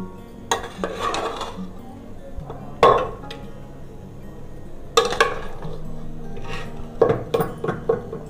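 Metal serving spoon clanking and scraping against a pressure cooker pot and a plate as pieces of mutton chaap are dished out: several clanks with a short ring, a few seconds apart, ending in a quick cluster. Background music under it.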